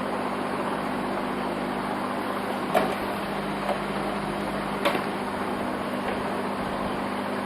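Steady whir and hum of computer cooling fans on a motherboard just powered up on the bench, with two short clicks about three and five seconds in.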